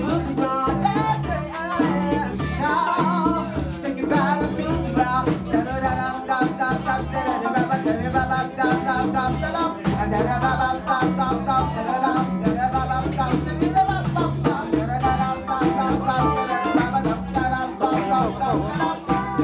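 A live band playing an upbeat song at a jam session, with a singer's voice over a steady beat and bass line.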